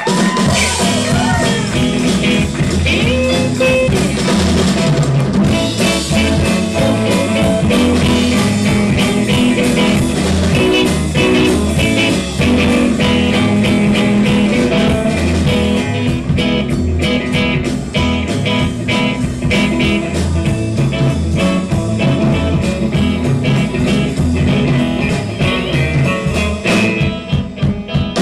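Live blues-rock band playing, with electric guitar leads over a drum kit and a pulsing bass line; the guitar bends and wavers its notes in the first second or so.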